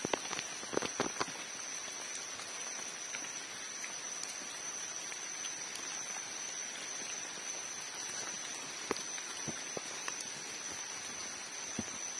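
Steady rain falling, with scattered drops tapping close by, and a thin steady high-pitched whine.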